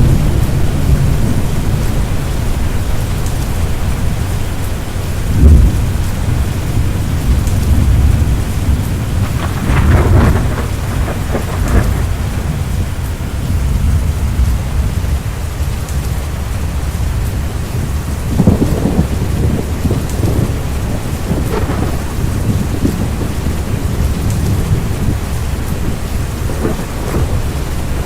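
Thunderstorm: steady heavy rain under a continuous low rumble of thunder, with louder rolls and cracks breaking through several times. The sharpest comes about five seconds in, and others follow around ten to twelve seconds and near eighteen seconds in.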